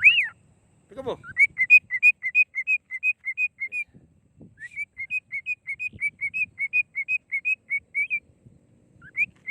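Cockatiel whistling a quick run of short, clear notes, about four a second, in two stretches with a brief pause between them.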